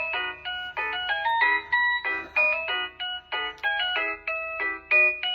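Electronic doorbell chime playing a quick melody of bell-like notes, about four notes a second, one of its Christmas tunes (the third, by the owner's reckoning).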